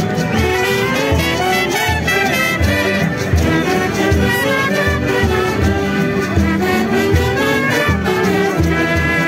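Band music with brass playing a pandilla puneña, over a steady drum beat.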